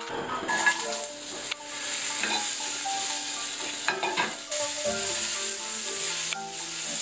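Cut vegetable pieces sizzling as they fry in a hot stainless steel skillet, stirred with a spatula. The sizzle starts about half a second in and then holds steady.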